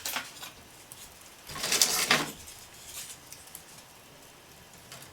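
Thin wooden fruit-crate sticks being handled and laid onto a small fire in a fireplace: a sharp knock at the start, a louder scraping rustle of wood about two seconds in, then faint scattered ticks.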